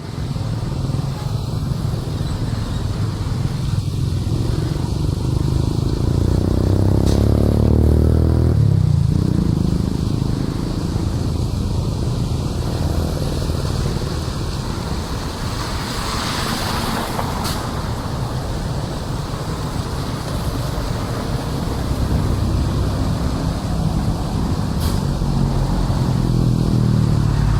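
Road traffic passing beside a flooded drain, over a steady low rumble. One vehicle's engine rises in pitch and then drops sharply as it goes by about nine seconds in, and another passes near the end.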